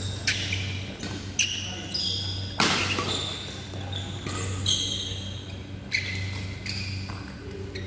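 Badminton rally: rackets smacking a shuttlecock, about one sharp hit every second or so with the loudest about two and a half seconds in, and court shoes squeaking on the floor between shots. A steady low hum runs underneath.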